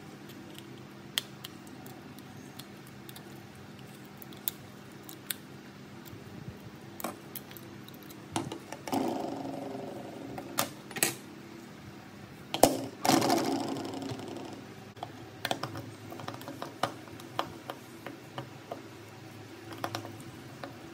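Small tools and phone parts clicking and tapping during a phone teardown, over a faint steady hum. There are two louder, longer scraping or rattling noises about 9 and 13 seconds in.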